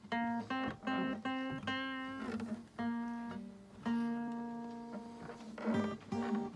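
Steel-string acoustic guitar played solo: a melody of single notes and small chords picked one after another and left to ring, with one long held note about four seconds in.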